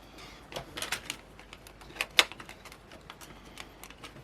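Scattered light clicks and taps from the plastic casing and small parts of a cheap camera being handled and pried apart, the sharpest click about two seconds in.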